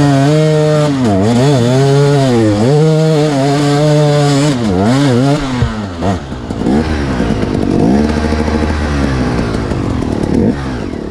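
2011 KTM 250 EXC two-stroke dirt bike engine revving up and down while riding up a muddy trail, the revs rising and falling about once a second. It dips briefly about six seconds in, then carries on revving more roughly.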